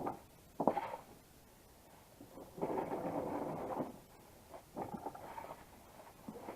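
Hand work on metal parts: two sharp knocks near the start, a rasping scrape lasting a little over a second, then a few lighter knocks.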